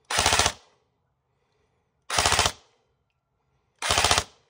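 East Crane M16A1 airsoft rifle firing three short full-auto bursts about two seconds apart, each a quick rattle of shots lasting about half a second.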